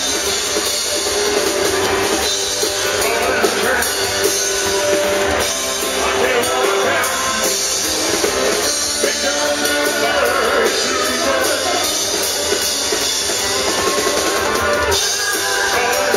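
Amplified live band playing a song: drum kit and electric guitar, with a male lead singer on a handheld microphone.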